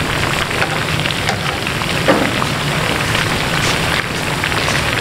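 Marinated chicken pieces deep-frying in hot oil in a karahi on a low flame: a steady sizzle full of small crackling pops, with one brief louder knock about two seconds in.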